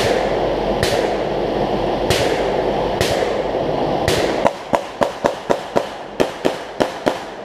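Gunshots fired downrange on a practical shooting stage, each with a short echo: a few single shots about a second apart, then a rapid string of about ten shots at roughly four a second from about halfway through. Steady rushing background noise underneath.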